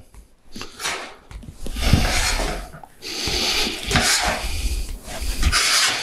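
Hand seaming pliers gradually bending up the seam flange of a sheet-metal roofing panel: a series of scraping, rubbing sounds of about a second each as the metal is worked bit by bit, with a few dull low knocks.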